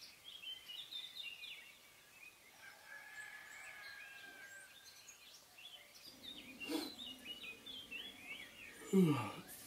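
Small birds chirping and whistling throughout. Near the end a man gives one loud yawn that slides down in pitch.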